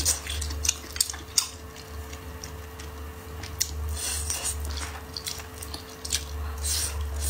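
Close-up eating sounds of braised pig trotter being bitten, sucked and chewed: irregular sharp, wet mouth clicks and smacks over a steady low hum.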